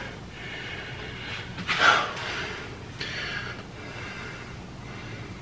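A person's short, sharp breath out through the nose about two seconds in, with quieter breathing around it.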